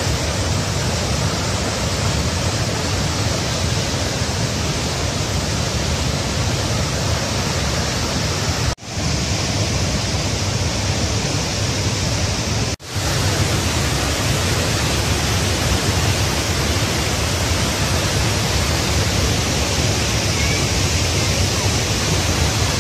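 Athirappilly Falls in heavy flow: a loud, steady rush of falling water that never lets up. It drops out briefly twice, about nine and thirteen seconds in.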